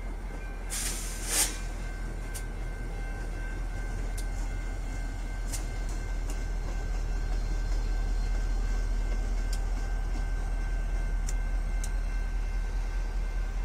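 Bangor & Aroostook diesel locomotive running light with no cars behind it, its engine giving a steady low rumble that swells as it passes. A short burst of noise comes about a second in, with scattered sharp clicks.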